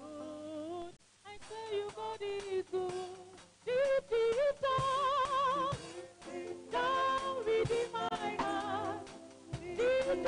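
A hymn sung by a woman's voice with a wavering vibrato, in short phrases, with a few soft low thumps under it.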